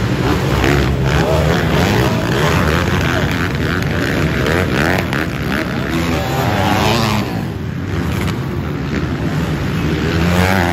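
Several pit bikes racing, their small engines revving up and down with overlapping rising and falling notes, surging loudest just before the end.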